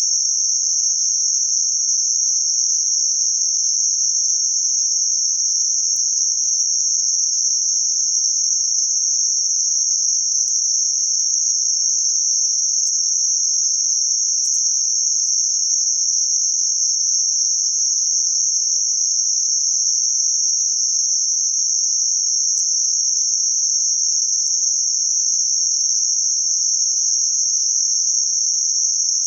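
Synthetic band-limited noise centred around 6051 Hz: a steady, unchanging high-pitched hiss with no low or high frequencies, a few faint clicks under it.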